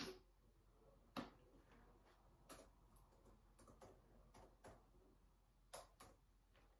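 Faint, irregular clicks of a finger tapping a laptop's keys or trackpad, about six of them spread over several seconds, in near silence.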